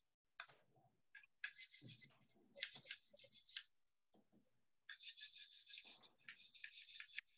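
Faint strokes of a paintbrush across a wooden tray, laying on a second layer: four spells of brushing, each about a second long, with short pauses between.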